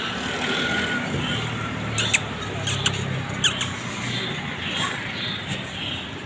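Street background noise with a low engine hum, and a few short, high-pitched chirps two to three and a half seconds in.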